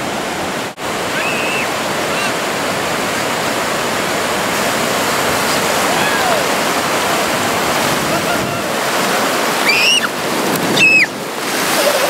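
Small waves breaking and washing through shallow water, a loud steady rush of surf. A few short high-pitched cries rise and fall over it, the clearest two near the end.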